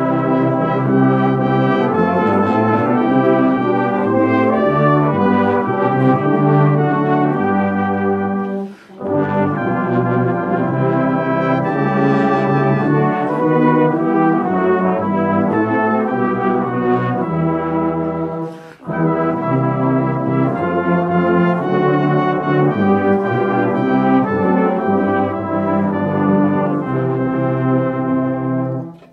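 Brass band of cornets, trombones, euphoniums and tubas playing together, in three phrases with short breaks about nine and nineteen seconds in. The music stops just before the end.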